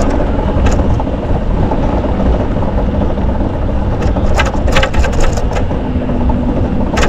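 Riding noise from a camera on a moving bicycle: a steady low rumble of wind and road noise. There is a sharp click about a second in, a cluster of clicks from about four to five and a half seconds in, and another click at the very end.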